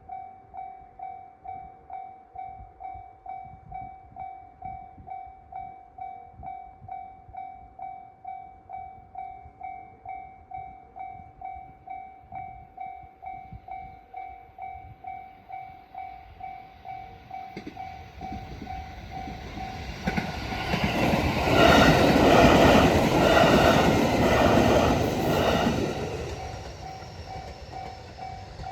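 Japanese level-crossing warning bell ringing at about two strokes a second. About twenty seconds in, a train rumbles over the crossing with clattering wheel noise, drowning the bell for several seconds before it fades, and the bell keeps ringing afterwards.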